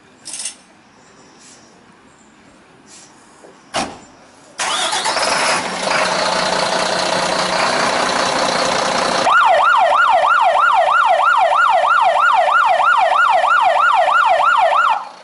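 A short thump about four seconds in, then the Mercedes-Benz fire engine's diesel starts and runs loudly. From about nine seconds its electronic siren yelps, sweeping up and down about three times a second, and it cuts off just before the end.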